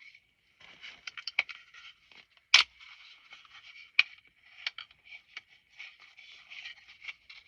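Handling of a compact semi-automatic pistol: scraping and rustling with a string of sharp metal and polymer clicks, the loudest about two and a half seconds in and another at about four seconds.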